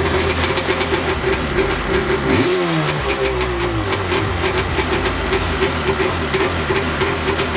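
Yamaha Superjet stand-up jet ski's twin-cylinder two-stroke engine catching and running on a stand out of the water, with one blip of the throttle about two and a half seconds in that rises and falls in pitch. It is run with the fuel valve shut to burn off the fuel left in the carburetor before winterizing.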